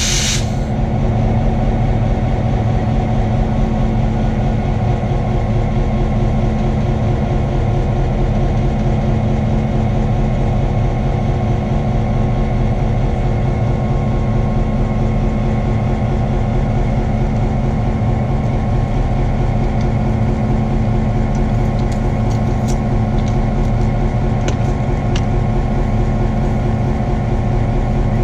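Diesel locomotive idling close by: a steady, loud engine drone with a constant low hum. A short burst of air hiss right at the start, and a few faint metallic clicks a little past two-thirds of the way through.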